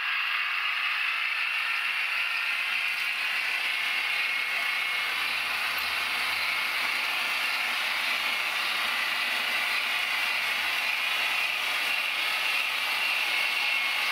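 H0-scale model trains running along the layout's track, a Santa Fe diesel locomotive followed by silver passenger coaches passing close by. Their wheels and geared motors give a steady mechanical running noise.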